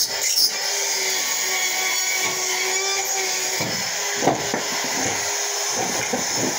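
Cordless drywall screw gun running with a steady whine while drywall is screwed up overhead, with a few knocks about four seconds in.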